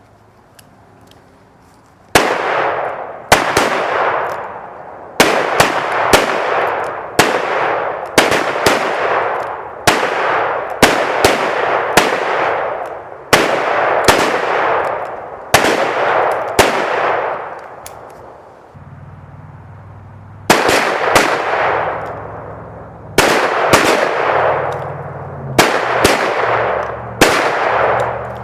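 Rapid handgun fire: a string of sharp shots, about one a second, each followed by a long echoing decay. It starts about two seconds in and pauses for a few seconds past the middle before going on.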